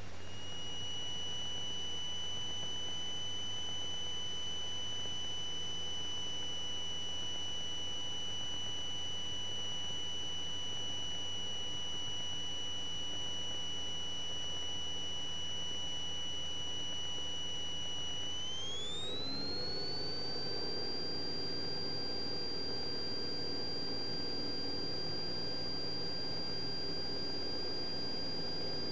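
Cessna 172 engine heard in the cabin as a steady high-pitched whine over a low engine drone. About two-thirds of the way in, the whine glides up to a higher pitch and holds there while the drone grows, as power comes up for the takeoff roll.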